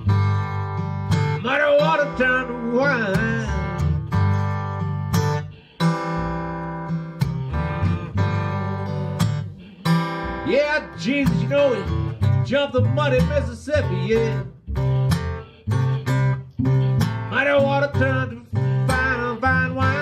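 Eastman steel-string acoustic guitar playing a blues solo: a steady low bass line under single treble notes, many of them bent.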